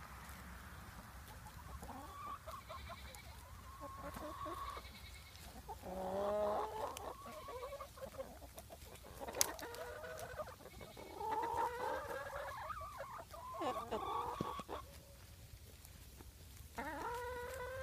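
Farm animals calling: a string of short pitched calls, some overlapping, with a sharp click about nine seconds in.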